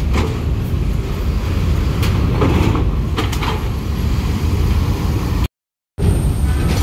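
A tour coach's diesel engine running low and steady as the coach creeps past, with several clunks and rattles as it rolls over the steel ramp plates. The sound cuts out briefly near the end.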